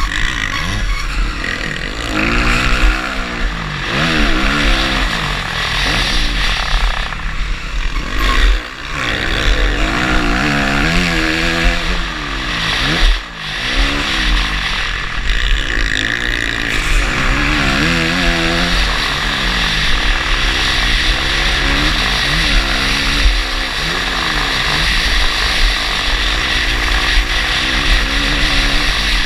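Motocross bike engine at racing speed, its pitch climbing and dropping over and over as the rider opens and shuts the throttle and shifts, with brief throttle cuts twice. Heavy wind rumble on the bike-mounted microphone runs underneath.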